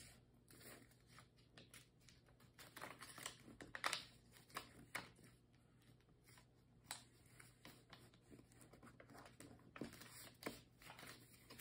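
Faint, scattered rustles and crisp creasing sounds of a sheet of paper being folded into a paper airplane.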